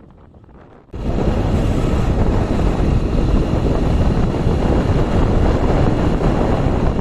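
Wind buffeting the microphone: a loud, steady rushing noise that cuts in suddenly about a second in, heaviest in the low rumble.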